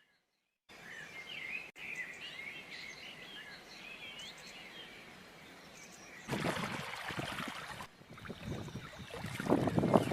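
Birds chirping and twittering over a faint steady hiss, then about six seconds in an abrupt change to splashing, rushing water from a waterfall or stream, growing louder near the end.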